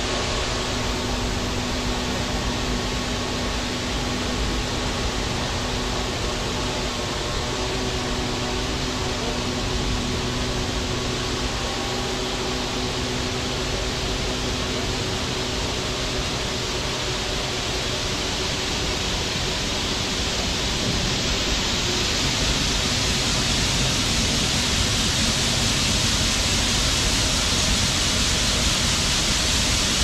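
Steady rushing noise with a faint steady hum, from a tractor running a grain cart's auger while it unloads soybeans into a semi trailer. A little over twenty seconds in, the hum fades and the rushing grows slightly louder.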